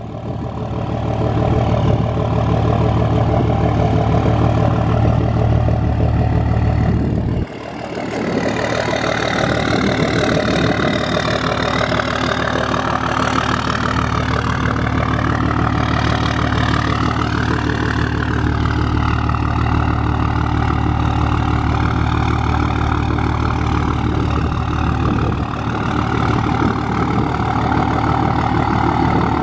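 Straight-piped 5.9 L Cummins inline-six turbodiesel of a 2005 Dodge Ram 2500, running steadily at idle and low speed as the truck creeps through parking manoeuvres. It dips briefly about seven seconds in, and the pitch wavers a little in the middle.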